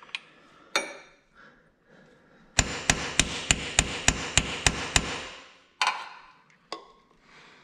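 A hammer gently tapping a 30 mm socket used as a seal driver, pressing a new oil sight glass into its bore in the engine case: a quick run of about ten taps, about four a second, starting a couple of seconds in. A few single knocks come before and after the run.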